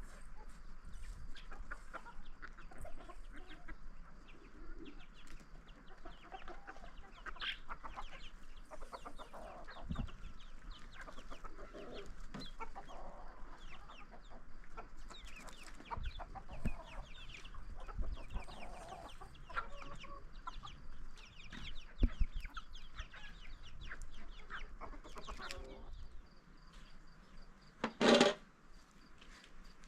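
Chickens clucking, with many short calls throughout and one louder call near the end.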